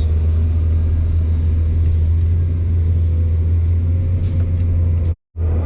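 Excavator's diesel engine idling, a steady low drone while the machine sits waiting to load. The sound drops out completely for a moment near the end.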